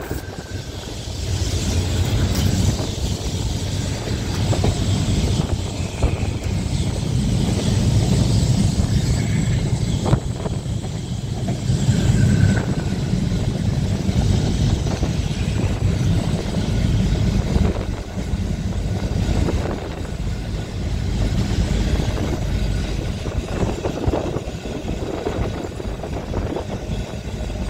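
Open-top Blackpool boat tram running along the track at speed: a steady rumble of wheels on rail that swells and eases, with wind blowing on the microphone. A few brief high squeals come and go.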